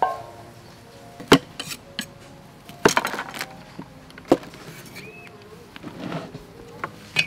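Cleaver blade knocking on a round wooden chopping board as beef balls are sliced, a handful of sharp knocks spaced unevenly a second or more apart, with a short cluster of them about three seconds in.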